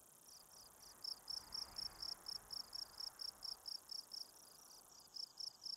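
Faint cricket chirping: a steady run of short, high-pitched chirps, about four a second, growing louder about a second in.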